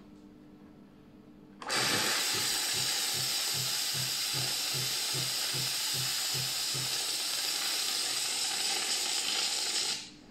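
Nivona NICR550/560 coffee machine blowing steam through its cappuccino frother and milk tube into a mug while rinsing the milk system: a loud, steady hiss that starts about two seconds in, with a low pulsing about two and a half times a second for its first five seconds, and stops sharply near the end.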